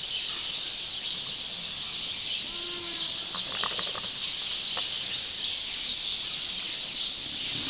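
Barn ambience: a steady high hiss with a few faint, brief animal calls from the back of the barn, about two and a half to four seconds in.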